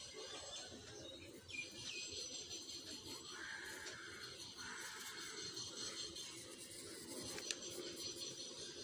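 Faint pencil strokes scratching on paper: two short strokes about three and a half and four and a half seconds in, over low room noise.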